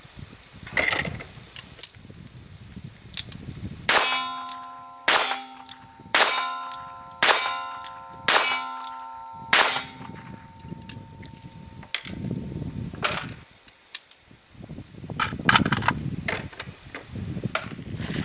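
Six revolver shots fired single action about a second apart, each followed by the ringing of a struck steel target. All six rounds of CCI Blazer fire with no misfire.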